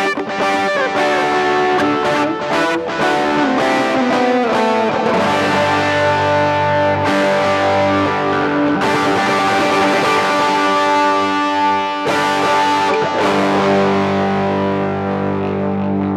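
Electric guitar played through a distortion effect: quick repeated chord strokes at first, then a pitch sliding downward, then long ringing chords and notes.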